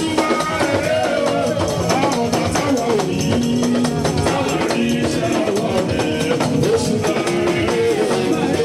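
Church worship music: voices singing a melody over hand percussion with a steady beat.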